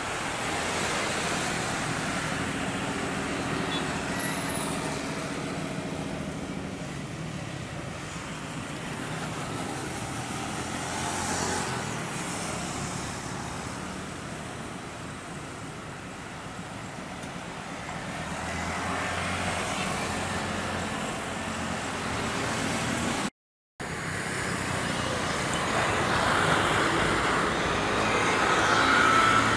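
Jet airliner engines at takeoff power as a Boeing 737 lifts off and climbs away, a steady rushing noise that slowly fades. After a brief dropout, an Airbus A320 on final approach grows louder, with a rising engine whine near the end.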